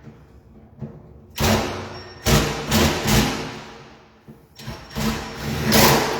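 Power drill/driver running in three short bursts, about half a second to a second and a half each, as it fits new door lock hardware.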